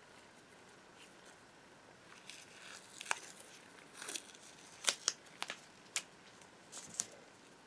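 Blue painter's tape being peeled and unwound from a painted metal rod: a run of short crackling rips and sharp clicks that starts about two seconds in and is sharpest in the second half.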